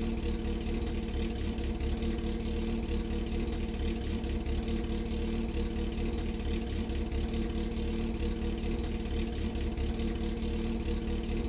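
Four-cylinder motorcycle engine idling steadily at an even pitch.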